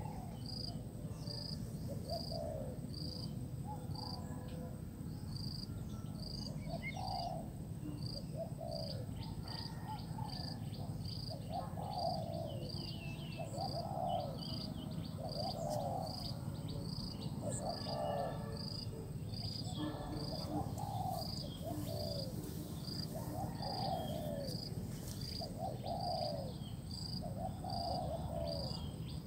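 Spotted dove cooing in short coos repeated about every second to second and a half, over insects chirping steadily at a high pitch about twice a second.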